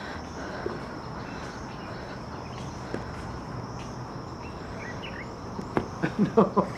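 Steady high-pitched insect chorus, with a few faint chirps about five seconds in and a quick run of short, sharp sounds near the end.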